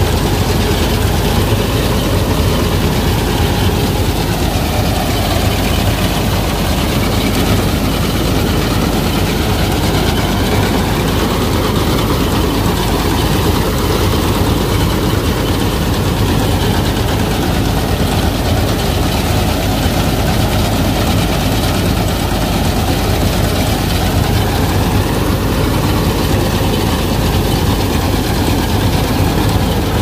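Combine harvester running steadily under load while cutting standing wheat: a loud, unbroken mix of diesel engine, header reel and threshing machinery.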